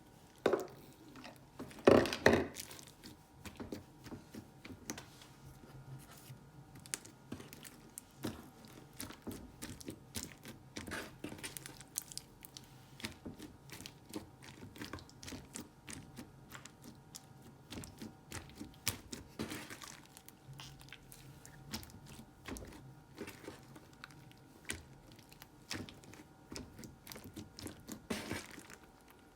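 Slime being squeezed and stretched by hand: a long run of small sticky clicks, pops and crackles, with a louder squish about two seconds in.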